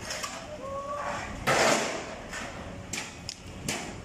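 Metal work noises as the old steel wire rope comes off a boom truck's crane. A short rising squeak is followed about a second and a half in by a loud, noisy scrape lasting under half a second, then a few sharp clicks and knocks.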